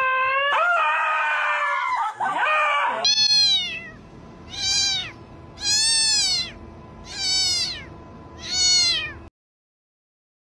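A beagle whines in long, wavering cries for about three seconds. Then a cat meows five times, each meow rising and then falling in pitch, about a second and a half apart.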